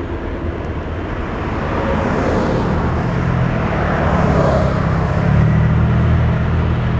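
Diesel locomotives of an approaching freight train, their engines droning low and steadily and growing louder as the train draws nearer.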